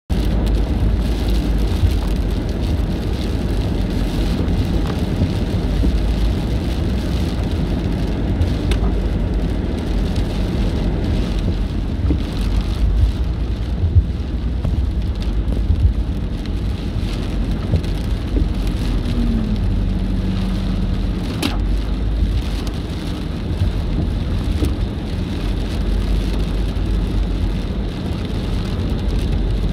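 Rain striking the windshield and roof of a moving car, with scattered sharper drop hits over a steady low rumble of tyres on wet road.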